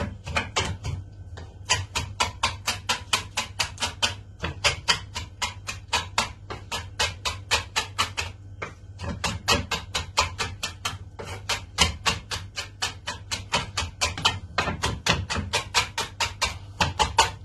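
Kitchen knife chopping fast on a cutting board, mincing fresh herbs, garlic and lemon peel with coarse salt: an even rhythm of sharp knocks at about four to five a second, with a few short breaks.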